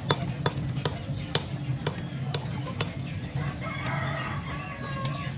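Meat cleaver chopping chicken on a wooden stump block: sharp knocks about twice a second for the first three seconds, then a couple more spaced out. Live chickens call from cages behind during the second half.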